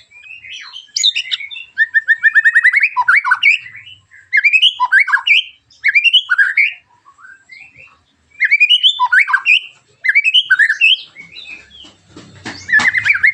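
White-rumped shama (murai batu) singing loud, varied phrases of sharp, harsh 'tembakan' notes, some seven phrases broken by short pauses, one with a fast rapid trill and several with quick down-slurred whistles.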